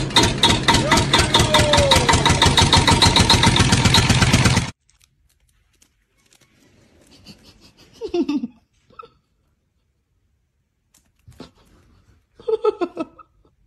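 Kitten purring loudly close to the microphone, an even rumble that cuts off about five seconds in. After that it is much quieter, with a few short kitten mews falling in pitch, around eight seconds and near the end.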